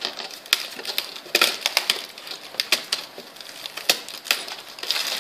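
Crinkling of a small clear plastic bag and irregular clicks of small plastic and metal toy parts being handled inside it.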